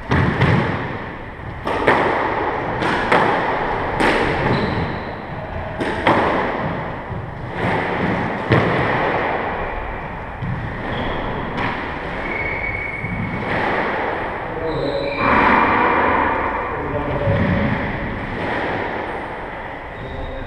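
Squash ball being hit with racquets and smacking off the court walls in a rally. There is a sharp hit about every second for the first nine seconds, with fewer hits after that. Shoes squeak briefly on the wooden court floor.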